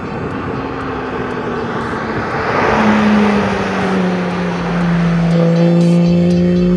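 Porsche 911 GT3's flat-six engine running hard on a track lap, with a swell of engine and tyre noise about three seconds in as the car goes by. The engine note then holds steady and sinks slowly in pitch.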